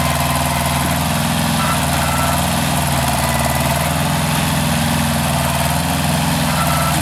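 Kubota B1400's three-cylinder diesel engine running steadily.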